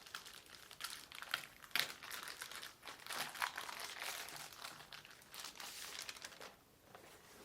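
Packaging crinkling and rustling as the wrist rest of a keyboard is unwrapped and handled, in irregular bursts with sharp crackles that die away near the end.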